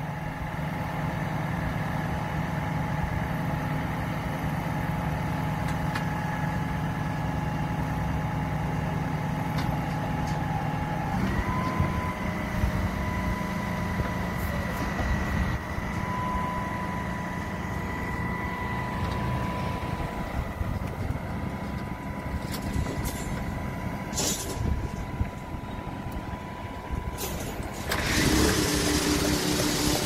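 Truck-mounted concrete boom pump's engine running steadily to raise and unfold the boom, with a steady hum and a higher whine; about eleven seconds in the engine note steps up in pitch. Near the end a loud rushing noise comes in over it.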